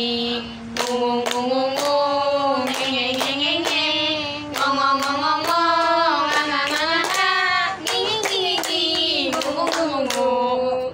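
Several young women's voices singing a syllable song in unison, nga, ngi, ngu, nge, ngo, with their hands clapping steadily in time, about two to three claps a second.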